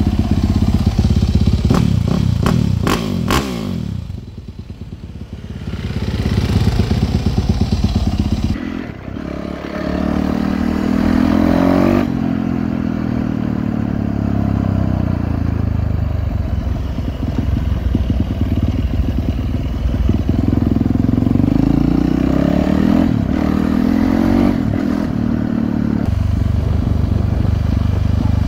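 Dirt bike engine under way on a sealed road, repeatedly revving up and easing off so its pitch rises and falls, with a quieter patch about four seconds in.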